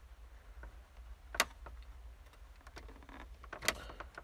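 Car stereo head unit being pushed into its metal dash mounting cage: two light clicks, one about a third of the way in and a sharper one near the end, as the unit is pressed toward the point where the cage's tabs catch it.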